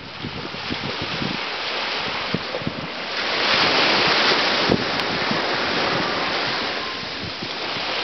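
Rushing water, a steady hiss that swells louder a few seconds in and then eases, with wind buffeting the microphone.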